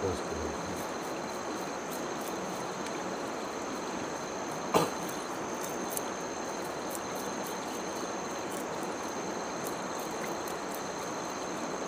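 Insects calling in a steady high whine over the even rush of a shallow river, with light ticks from knives scraping and cutting fish on a wooden log. One sharp knock, about five seconds in, stands out as the loudest sound.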